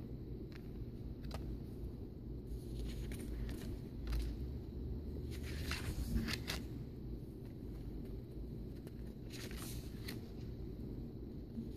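Faint, scattered rustles and soft clicks of oracle cards being handled, over a steady low background hum.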